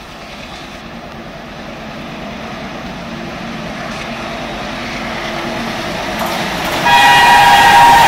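WDG3A ALCO diesel locomotive approaching at speed, its engine and the train's running noise growing steadily louder. Near the end it sounds a loud multi-tone horn as it reaches the camera.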